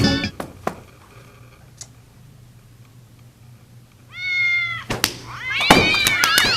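Cats meowing: one short, level-pitched meow about four seconds in, then a run of overlapping meows and yowls that bend up and down in pitch near the end.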